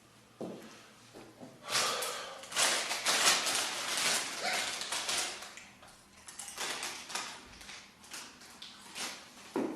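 A woman burping: a short low burp about half a second in and another near the end, with several seconds of noisy, hissing sound between them.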